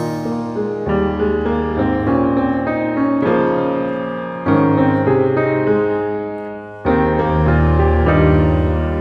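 Background piano music, chords struck anew about every two to three seconds, with sustained notes between them.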